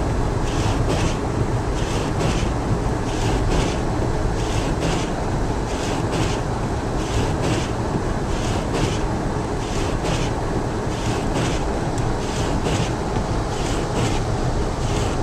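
Car driving on snowy roads, heard from inside the cabin: a steady low rumble of road and engine noise, with a regular short high swish repeating throughout.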